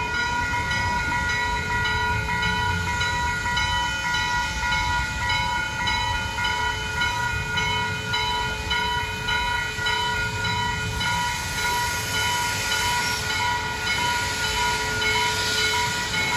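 Railroad grade-crossing warning bells ringing steadily in a fast repeating pattern while the crossing gates lower, over a low rumble. A hiss builds near the end.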